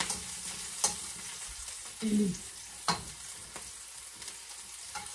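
Garlic and onion sizzling in hot oil in a wok while they brown, with a metal spatula clinking against the wok three times in the first few seconds of stirring.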